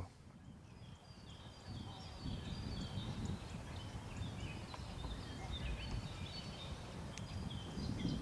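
Outdoor ambience: small birds chirping repeatedly, high and brief, over a low rumbling noise that swells a couple of seconds in.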